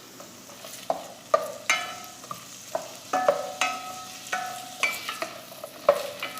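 Sliced onions frying in coconut oil in a pan over high heat, with a faint sizzle. A spoon stirs them, knocking and scraping against the pan with ringing clinks about once or twice a second.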